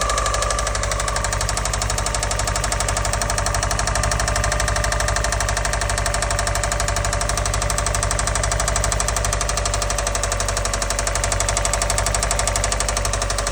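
Subaru EJ205 flat-four in a 2004 WRX running at idle with a fast, steady knocking chatter. It is a knock-type fault that has grown louder over about a day and a half; a bad timing-belt tensioner hitting the block has been ruled out, since the noise does not change.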